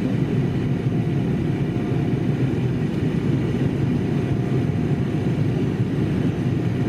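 Steady low rumble of cabin noise inside an Embraer ERJ-195LR airliner, with a faint steady whine over it.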